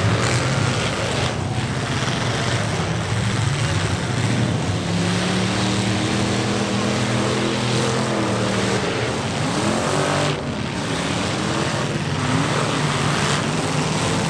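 Several demolition derby pickup trucks' engines revving hard at once, their pitch repeatedly rising and falling as the trucks push and ram one another.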